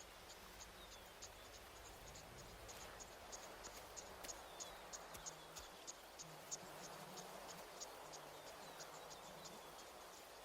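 Faint insects chirping, short high chirps about four a second, over a soft background hum.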